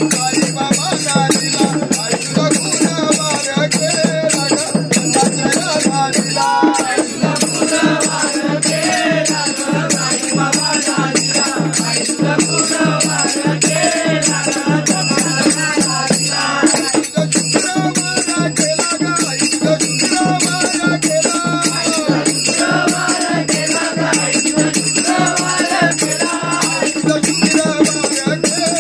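Men singing a Hindi devotional bhajan together, with a fast, steady beat of rattling and jingling hand percussion.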